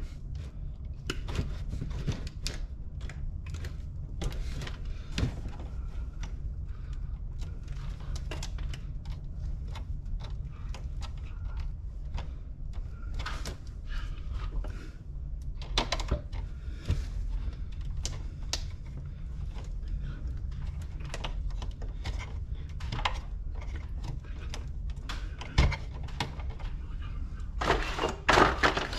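Hand tools working wire at a metal electrical box: scattered small clicks and taps of pliers and wire strippers on wire and steel, with a louder cluster near the end, over a steady low rumble.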